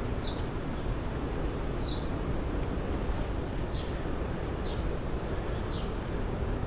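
A bird repeating a short, high, falling call about once a second over a steady rushing noise.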